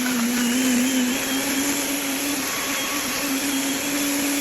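Britânia BLQ1300 Fortis Turbo 1400 W blender running at full speed, blending a batch of milk, powders, sugar and ice cubes. Its motor hum rises a little in pitch about a second in and then holds steady.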